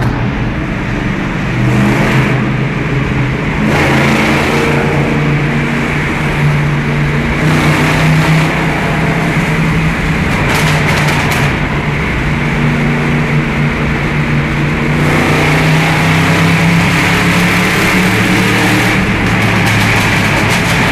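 V8 engine of a 1961 Chevrolet Impala running loud under throttle, its pitch stepping up and down several times as it accelerates and eases off.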